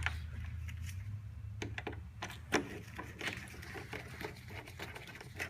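Scattered light clicks and taps of a plastic car bumper and its fixings being handled and lined up, the loudest knock about two and a half seconds in, over a low steady hum.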